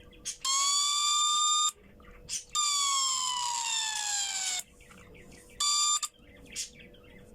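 Electronic siren of a homemade laser burglar alarm, going off in three bursts of uneven length, each cut off abruptly. It is a buzzy tone that slides in pitch, and the longest burst falls steadily.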